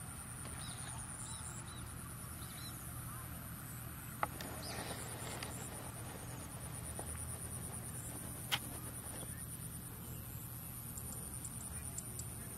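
Open rice-field ambience: a steady, pulsing high-pitched insect trill with scattered bird calls in the first half. Two sharp clicks stand out, about four seconds apart.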